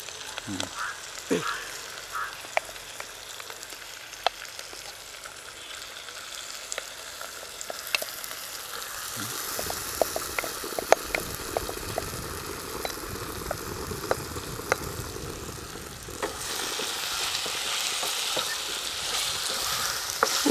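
Marinated ivy gourd pieces frying in hot coconut oil in a non-stick pan: a steady sizzling hiss with scattered light clicks, growing louder about sixteen seconds in as the pieces spread over the hot pan.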